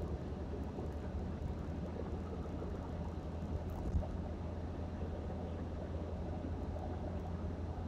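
Steady low rumble of a car driving at highway speed, heard from inside the cabin: engine and tyre noise, with one brief bump about four seconds in.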